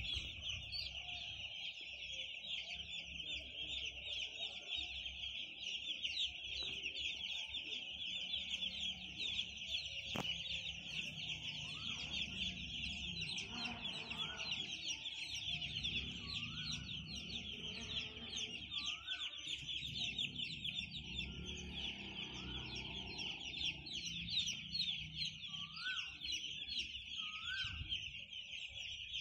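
Hundreds of day-old broiler chicks peeping together in a dense, continuous high-pitched chorus, with a few lower single calls now and then.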